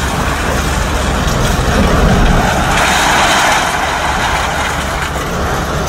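Scrap-handling machine with a grapple running steadily while it lifts and drops loose scrap metal, the engine rumble under the rattle and crash of the metal, which grows louder about three seconds in.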